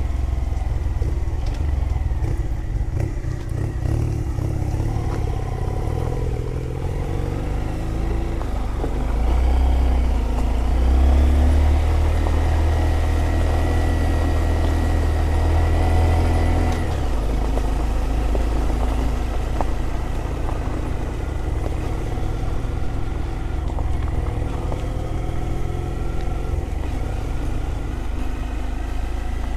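Small Honda motorcycle engine running under way, its pitch rising through the first several seconds, then held steady and at its loudest through the middle before easing off, with wind and road noise around it.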